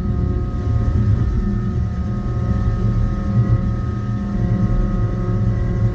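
John Deere skid steer's diesel engine running steadily, heard from inside the cab, with a steady whine over its low drone as the machine pushes snow with its bucket.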